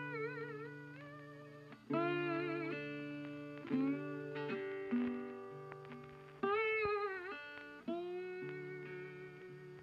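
Background music on guitar. Notes or chords are struck every couple of seconds and left to ring out, some sliding or wavering in pitch.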